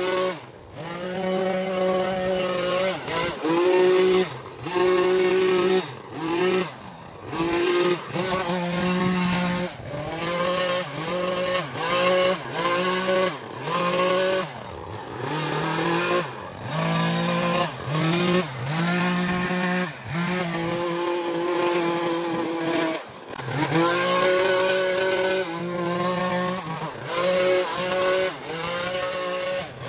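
Small engine of a handheld gas power tool revved in repeated bursts, the pitch dropping briefly and climbing back to full throttle about once a second.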